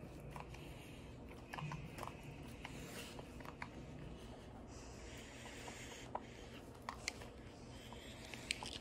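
Faint scattered wet clicks and smacks of a German shepherd licking and nibbling at its own fur, over a low room hum.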